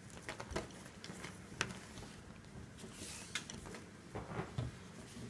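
Nylon paracord strands being handled and pulled through the fingers while a tangle is worked out: faint scattered soft ticks and rustles, with a brief hiss about three seconds in.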